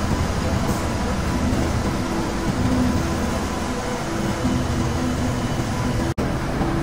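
Textile mill machinery running, a steady loud mechanical drone with a faint hum. It breaks off for a split second about six seconds in.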